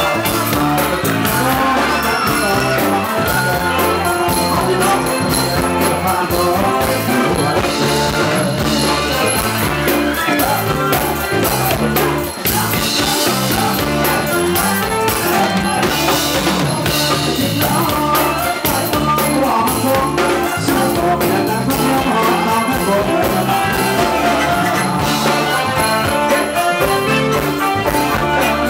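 Live band playing Thai ramwong dance music: electric guitar and drum kit with singing, loud and continuous.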